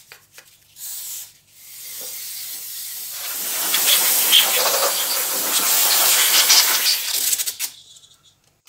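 Long, loud hiss of pressurised spray on the intake manifold as it is washed and degreased. It builds up about two seconds in, holds, and stops near the end, after a few short brush scrubs at the start.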